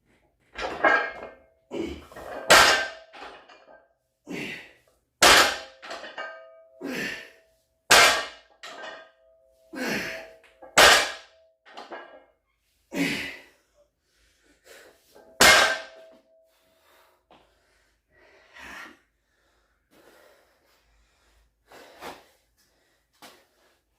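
Loaded barbell with weight plates touching down on the floor rep after rep during a deadlift set, each touchdown a clang with a ringing metallic tone. The strikes come every second or so, then grow fainter and sparser over the last several seconds.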